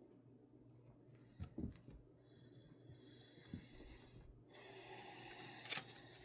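Near silence: faint room hum with a few soft clicks and a brief soft rustle about four and a half seconds in.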